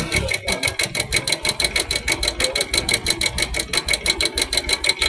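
Bajaj Boxer 100S single-cylinder four-stroke engine idling with a fast, even mechanical clatter at about nine to ten beats a second.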